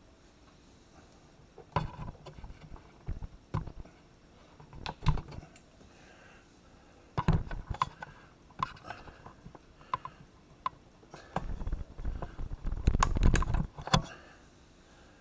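Sharp plastic clicks, taps and knocks from a plastic RC toy vehicle being handled, coming in irregular clusters, with a longer, louder run of rattling knocks near the end.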